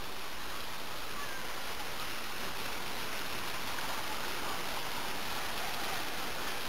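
Water pouring steadily from a mushroom-shaped pool fountain, a continuous curtain of water splashing into the shallow pool.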